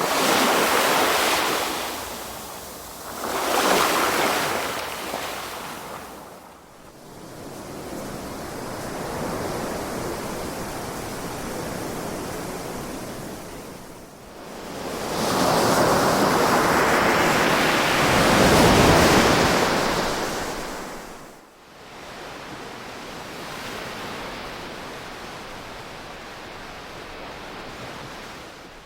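Ocean waves breaking on a shore: a wave crashes at the start and another about three seconds in, then a softer wash, and a long, loud surge builds from about fifteen seconds in before dying away about twenty-one seconds in, leaving a steady hiss of surf.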